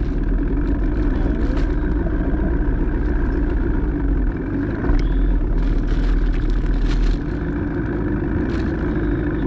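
Boat motor running steadily with the boat under way, a heavy low rumble of wind and hull noise beneath it that eases slightly about seven seconds in.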